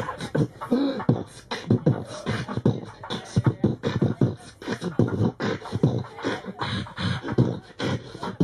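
Human beatboxing: a man making drum sounds with his mouth, low beats about four a second with hissy higher sounds between them, in a steady run.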